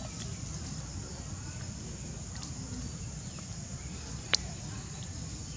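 Steady high-pitched drone of insects over a low rumble, with one sharp click about four seconds in.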